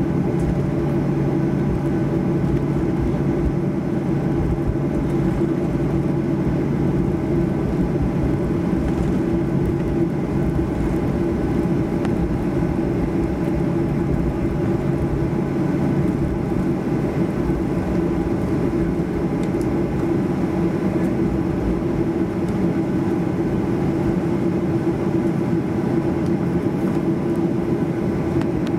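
Boeing 737-800 cabin hum with the engines at idle during taxi after landing: a steady rumble with a low tone and a somewhat higher tone, the lower tone dropping out about halfway through.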